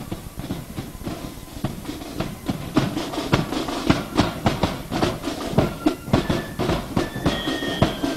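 Music with a steady beat of drum strokes that grows stronger about three seconds in, and a few short held high notes near the end.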